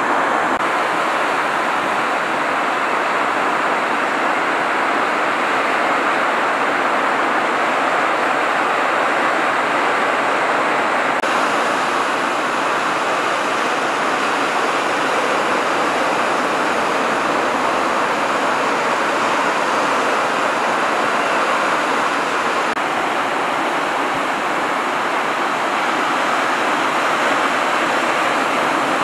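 Steady rush of breaking surf and whitewater, with no separate crashes standing out; the texture of the noise shifts abruptly twice, about a third and two thirds of the way in.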